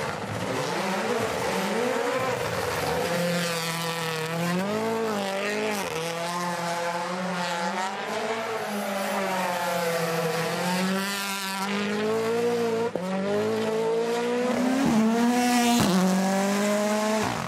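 Rally car engine running hard on a stage, its pitch rising and falling over and over as the driver accelerates, lifts and shifts gears. Two brief sharp cracks come in the second half.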